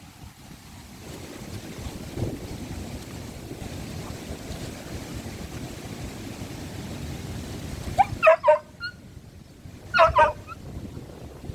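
Wind buffeting the microphone, then a dog barking in two short bursts of several quick barks, about eight and ten seconds in.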